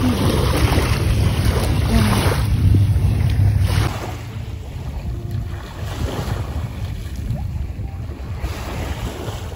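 Wind buffeting the microphone over small waves washing at the shoreline; about four seconds in it drops to quieter water sloshing, with a splash near the end as a person plunges into waist-deep sea water.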